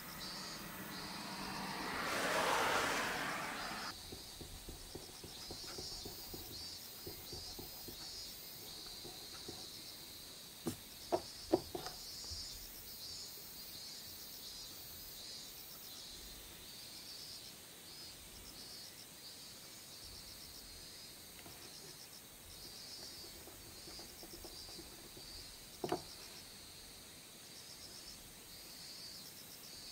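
Insects chirping in a steady, evenly pulsing high chorus. A broad swell of rubbing noise rises and stops abruptly in the first few seconds, and there are a few light knocks: a quick cluster about a third of the way in and one more later on.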